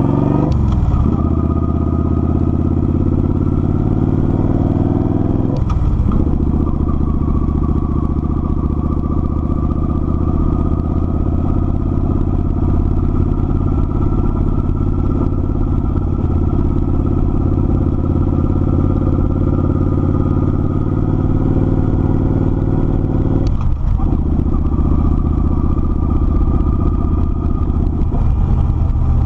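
Kawasaki Vulcan 900's V-twin engine under way on the road. Its note climbs through a gear and drops sharply at a shift about six seconds in, then holds a steady cruising pitch. It dips briefly and shifts again near the end.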